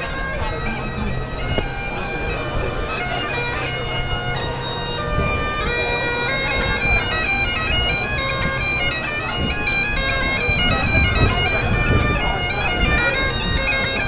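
Great Highland bagpipe played by a street piper: steady drones under a chanter melody of quick stepping notes, growing louder about five seconds in.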